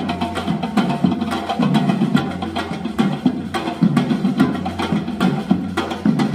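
Live percussion-driven music: drums played in a fast, steady rhythm, with sharp wood-block-like clicks over a low bass.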